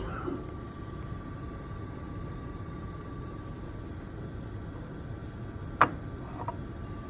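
Necta Kalea automatic drinks machine running as it prepares tea, a steady mechanical hum with a thin high whine, and one sharp click about six seconds in, followed by a fainter tick.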